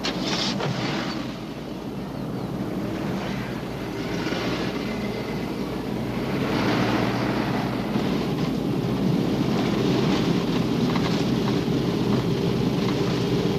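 A car's engine and road noise as the sedan pulls away and drives along, a steady running hum that grows louder about halfway through.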